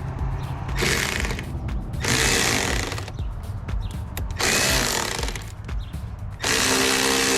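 Cordless power drill/driver running in four short bursts, each about a second long, as it drives screws. The last burst starts near the end and keeps going. Background music with a steady beat plays underneath.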